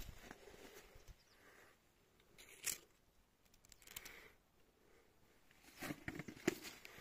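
Scattered rustling and crackling, with a sharp snap about halfway through and a quick cluster of crackles near the end.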